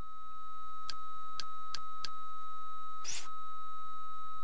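A steady high whine runs throughout. About a second in come four short clicks, and about three seconds in one short rising swoosh: the media centre's menu sound effects as the cursor steps through the on-screen keyboard and the dialog closes.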